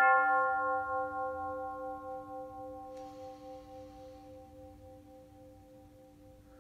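A meditation singing bowl struck once, ringing on with several overtones and a slow wobble, and fading gradually. A faint, higher shimmer joins briefly about three seconds in.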